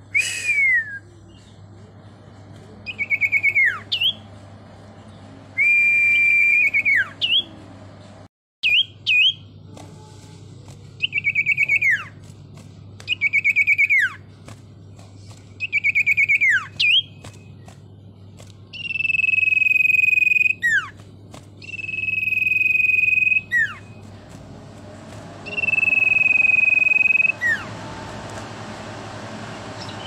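Caged common iora (cipoh, sirtu) singing a series of loud, clear whistled phrases about every two seconds. The first phrases quaver on one high note and end in a quick downward slur. From about two-thirds of the way in they become long, level whistles of about two seconds each, dropping sharply at the end.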